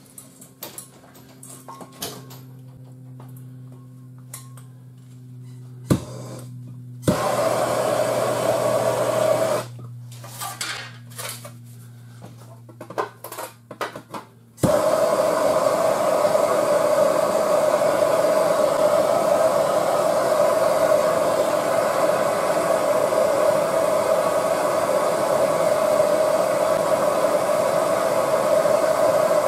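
Bernzomatic TS8000 hand torch on a yellow MAP-Pro cylinder, heating a steel frame rail: the flame runs with a steady roar in a short burst about seven seconds in, then after a few clicks is lit again and burns steadily from about halfway through. Before that, a low hum with scattered clicks.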